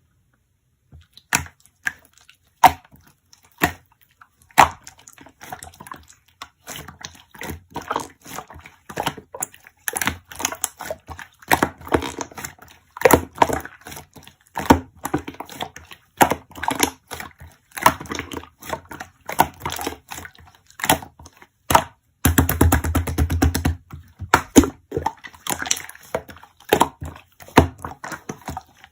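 Slime being pressed, poked and squished by hand, with irregular sharp crackling clicks as air pockets pop. About 22 seconds in comes a fast unbroken string of clicks lasting about two seconds.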